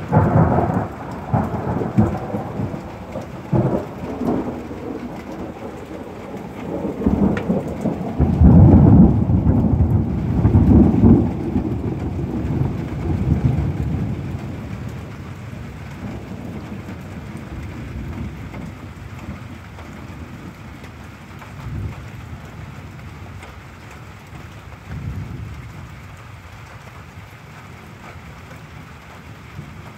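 A thunderstorm: a long roll of thunder that swells to its loudest about a third of the way in and dies away by the middle, with fainter rumbles later, over an even hiss of steady rain.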